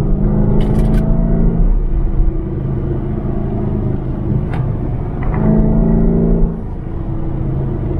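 Chevy SS's LS3 V8 engine heard from inside the cabin while driving, pulling steadily. It rises in pitch and gets louder past the middle, then eases off abruptly about two-thirds of the way through.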